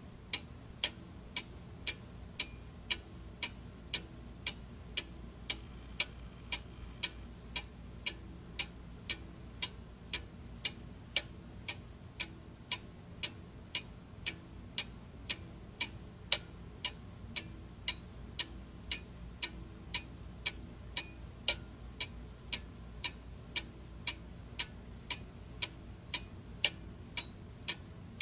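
Clock ticking steadily, about two sharp ticks a second, over a faint low background hum.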